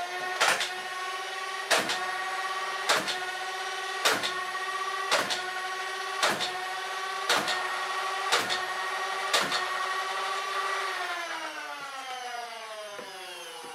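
Nerf Ultra 2 flywheel blaster, converted to full-length darts and running its stock motors on a 3S LiPo. The flywheel motors spin up to a steady high whine, nine darts are fired about a second apart with a sharp snap each, and the motors then wind down with a falling pitch near the end.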